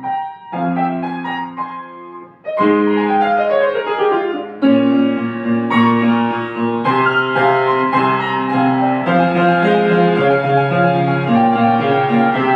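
Solo piano playing a classical piece: a few held chords, then from about two and a half seconds in a fuller, louder flowing passage.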